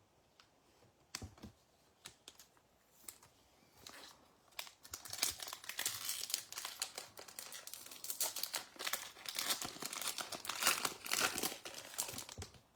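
Baseball card pack wrapper being torn open and crinkled. There are a few light clicks at first, then dense crinkling from about four seconds in until just before the end.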